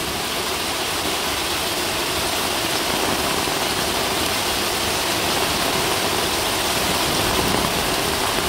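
Heavy rain pouring down steadily on a paved garden path and the plants around it.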